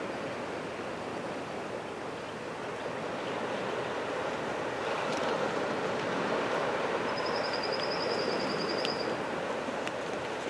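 Waves washing onto a beach, a steady surf hiss that swells a little past the middle. A high, rapid trill sounds for about two seconds in the second half.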